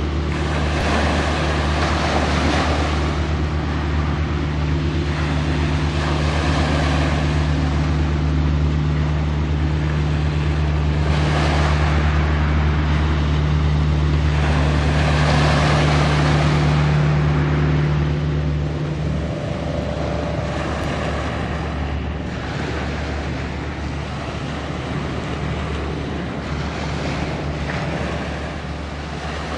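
Steady low drone of a passing ship's engines across the water, lightening a little past halfway. Over it, waves wash and wind gusts on the microphone in repeated swells.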